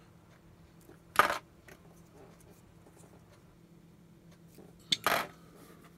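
Two brief handling clicks, about a second in and again near five seconds, over a faint steady hum.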